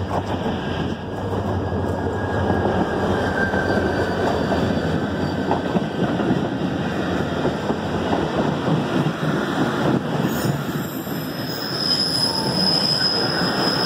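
Diesel-hauled passenger train of the Karachi Circular Railway pulling in and its coaches rolling past close by, with steady rumble and rattle of wheels on rail. About ten seconds in a high, steady wheel squeal joins as the train slows for its stop.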